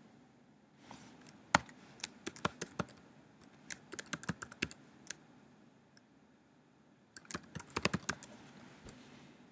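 Typing on a computer keyboard: two short runs of key clicks, the first from about one and a half to five seconds in, the second around seven to eight and a half seconds in.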